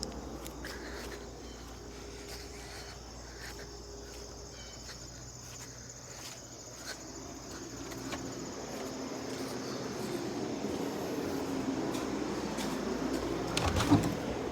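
1966 Admiral Royal 106 Series air conditioner running on high with a steady, quiet fan and compressor hum. A sharp knock comes near the end.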